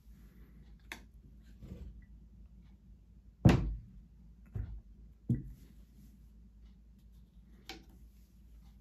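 A sewing machine head being tilted back on its hinges: a few light clicks of handling, then a heavy thud about three and a half seconds in as it comes to rest, followed by two lighter knocks and a final click near the end.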